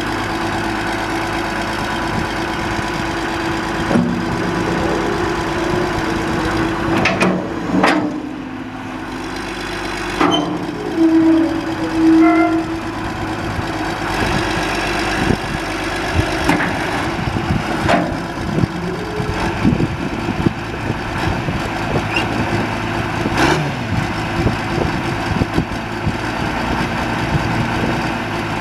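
John Deere 710D backhoe loader's diesel engine running steadily, with a few sharp knocks or clanks along the way and a brief louder tone about eleven seconds in.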